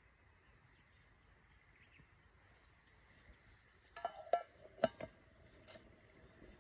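Metal cookware or utensils clinking together several times in quick succession about four seconds in, each strike ringing briefly, then a couple of lighter clicks.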